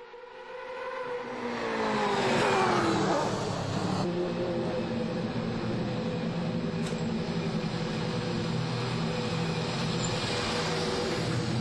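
Mercedes-AMG DTM race car's V8 engine falling steeply in pitch as the car comes past, loudest about two and a half seconds in. The engine then runs steadily at low revs as the car rolls slowly down the pit lane.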